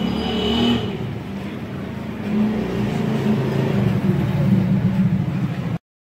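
Refrigerator compressor running with a steady hum, its suction drawing cleaning fluid through the fridge's capillary tube to flush it. The sound cuts off suddenly near the end.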